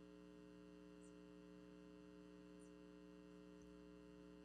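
Near silence: a faint, steady electrical hum of several held tones, with a couple of tiny high ticks.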